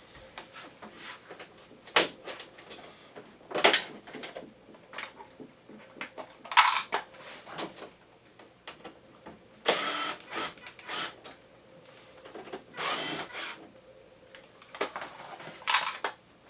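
Hands-on disassembly of a Panasonic Eolia wall-mounted air conditioner: scattered plastic clicks and knocks as parts are handled and unclipped. A few louder noisy bursts, each up to about a second long, come near 10 and 13 seconds in.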